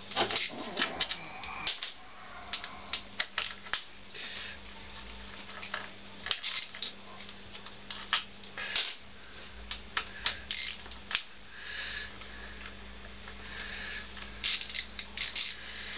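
Hand tools working on a Honda CX500 motorcycle engine while the gear pedal is disconnected: irregular metallic clicks and clinks with short scraping and rustling, over a faint steady hum.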